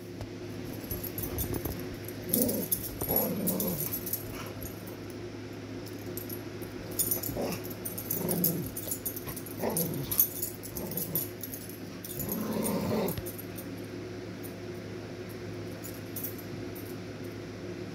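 Two dogs play-fighting on a bed, growling in short bouts over and over, busiest in the first two-thirds and easing off after about thirteen seconds, with scattered rustling and small clicks from their movement over a steady low hum.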